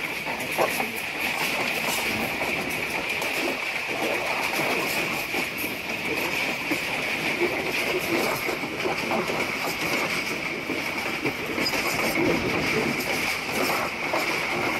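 Passenger train coach running along the track: continuous rumble and rattle of the carriage with wheels clattering over the rails, over a steady high-pitched hiss.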